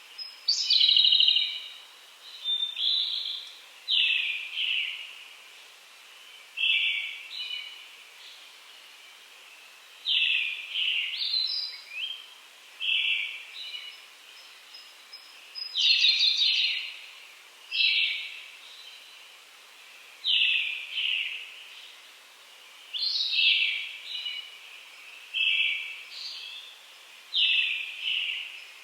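Wild songbirds singing in the early morning: short, clear song phrases repeated every one to three seconds, some ending in a fast trill, over a faint steady background hiss.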